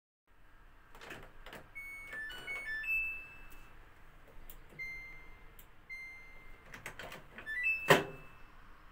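Samsung EcoBubble front-loading washing machine's control panel beeping as it is switched on and set: a short jingle of tones at changing pitches, two longer single beeps, then a short rising run of tones. Knocks and clicks come through as well, the loudest a sharp knock about eight seconds in.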